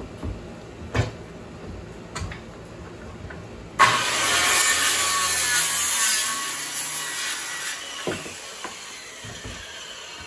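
Circular saw started up about four seconds in, cutting through a wooden board for about four seconds, then switched off and winding down. A few knocks of boards being handled come before and after the cut.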